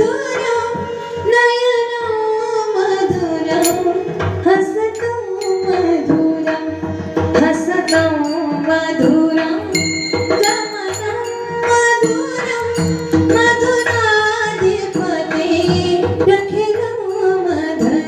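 Marathi devotional kirtan music: a woman's voice singing a slow, wavering melody over a tabla-style hand drum beat.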